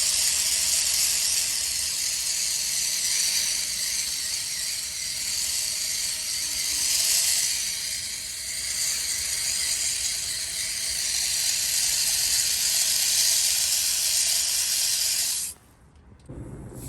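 Steady hiss of water spraying from a watering nozzle onto potted succulents. It cuts off suddenly for a moment near the end.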